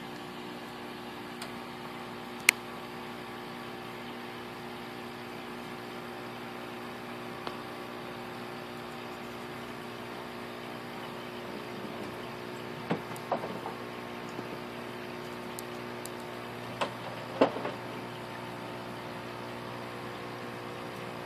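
Steady hum of aquarium equipment, several fixed tones held together, with a sharp click about two and a half seconds in and a few duller knocks later on.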